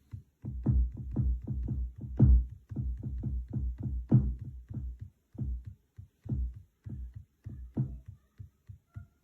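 Electronic drum samples, mostly deep kicks with short percussive hits, triggered by finger-drumming on a Native Instruments Maschine Mikro Mk3 pad controller. The hits come in an uneven rhythm with a few short pauses.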